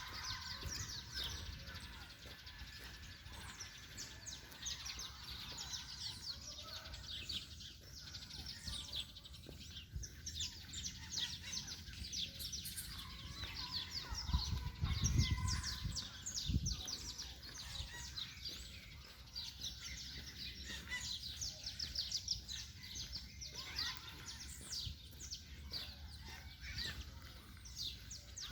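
Many birds chirping and calling together in a dense chorus of short, quick falling notes. There is a low rumble about halfway through.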